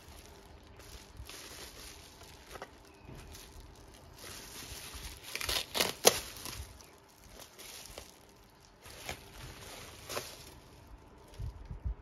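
Plastic bubble wrap crinkling and crackling as it is handled, then ripped open with a loud tearing burst about halfway through, followed by lighter rustling.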